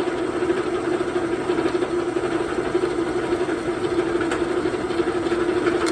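Drill press running steadily with one even hum, drilling out a broken-off steel drill bit with a carbide bit.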